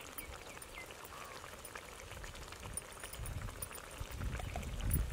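Tomato gravy sizzling and simmering in an iron kadai over a wood fire, with faint crackles. A low rumble rises near the end.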